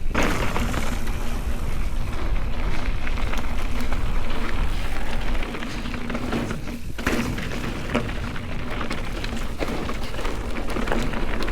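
Mountain bike riding down a dirt singletrack: tyres crunching and rolling over dirt and rock, with scattered knocks and rattles from the bike and a steady wind rumble. The sound eases slightly about halfway through.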